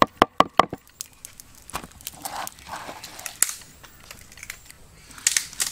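A quick run of sharp knocks, about five a second, in the first second, then scattered clicks and crinkling, crackling handling noises, with a short cluster of knocks near the end.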